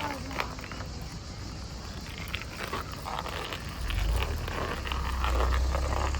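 Outdoor ambience with scattered light clicks and knocks, and a heavy low rumble of wind buffeting the microphone that comes in about four seconds in.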